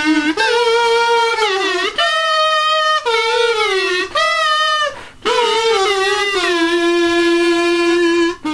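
A lone voice singing a wordless tune in long held notes that slide up and down between pitches, with short breaks between phrases and a long low note near the end.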